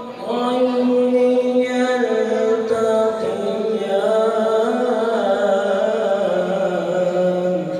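A man reciting the Quran in the melodic tajweed style, one voice drawing out long ornamented notes that step up and down in pitch, the last held note ending near the end.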